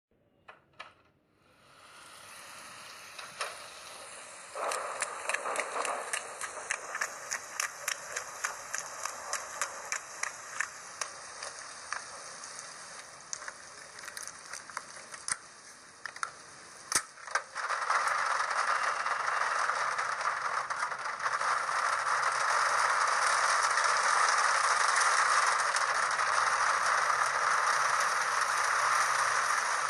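Staged sound-effects sequence: a run of irregular rattling clicks over a hiss, one sharp hit about seventeen seconds in, then a steady, loud hiss.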